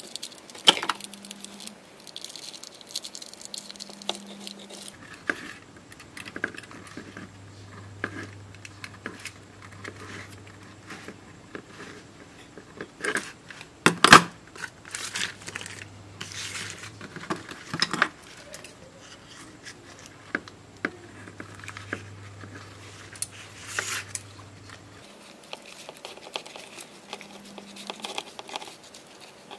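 Stiff, thin sheet from an unrolled lithium polymer battery crinkling and rustling in irregular bursts as it is handled and folded by hand, with a sharp knock about 14 seconds in. A faint steady low hum sits under the middle part.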